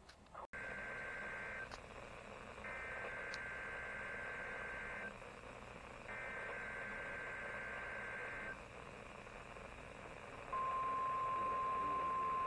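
NOAA Weather Radio receiver playing an EAS SAME header: three bursts of screechy two-tone digital data, each a couple of seconds long. About ten and a half seconds in, the steady weather-radio alert tone begins, announcing a required weekly test.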